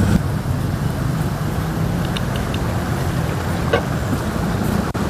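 Steady street traffic noise: a continuous low rumble of passing vehicles' engines and tyres, with a faint short click or knock near the end.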